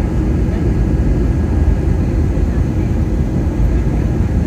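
Airliner cabin noise: a steady low rumble of jet engines and rushing air heard from inside the cabin.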